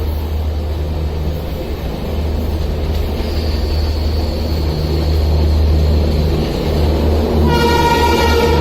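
Rajdhani Express train hauled by an Indian Railways electric locomotive, running with a steady low rumble. Its horn sounds about seven and a half seconds in and is still going at the end.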